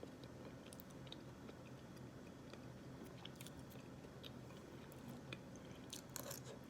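Faint chewing and small wet mouth clicks from eating soft oatmeal, with a few sharper clicks near the end.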